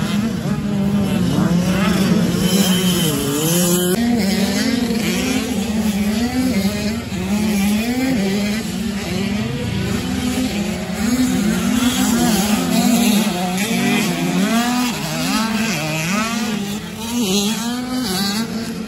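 Several supermini-class motocross bikes racing on a dirt track. Their engines overlap, repeatedly revving up and dropping off as riders accelerate out of corners and over jumps.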